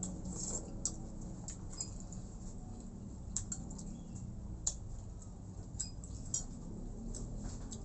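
Eating sounds: cutlery and dishes clinking in short, sharp, irregular clicks during a meal of rice and chicken-feet soup.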